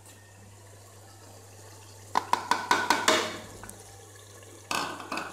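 Wooden spoon knocking and scraping against an aluminium cooking pot while green chillies are stirred into curry: a quick run of about six knocks about two seconds in, then a short scrape near the end.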